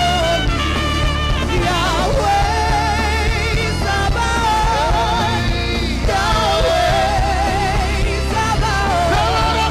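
Worship music: a voice singing a melody with vibrato and gliding runs over steady band accompaniment.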